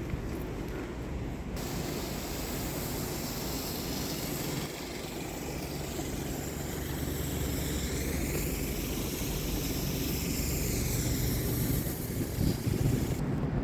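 Wind rumbling on the microphone under the steady hiss of vehicle noise on a snowy street. The hiss comes in about a second and a half in, sweeps up and down in pitch around the middle, and drops away near the end.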